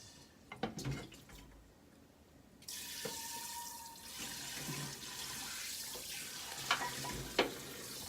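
Kitchen tap turned on about two and a half seconds in, water running steadily into a sink, with a few knocks and clinks of utensils before and during it.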